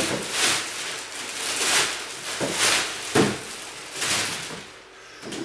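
Rustling and handling noises of bags and boxes being moved: several swishes and a knock a little after three seconds in.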